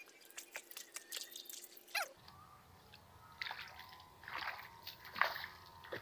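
Water dripping and splashing as hands work in a shallow muddy pool, then several splashing steps as feet wade through the shallow water.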